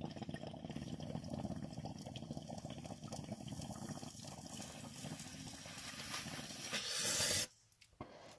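Glass bong bubbling as smoke is drawn through its water for about seven and a half seconds. It swells into a louder rush of air near the end, then stops suddenly.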